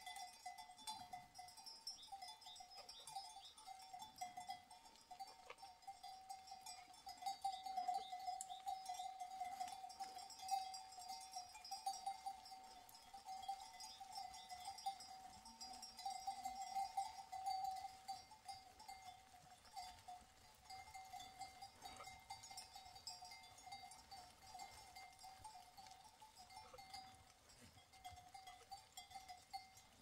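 Many livestock bells on a grazing flock of sheep and goats jingling faintly and continuously, a dense steady ringing that swells a little in the middle.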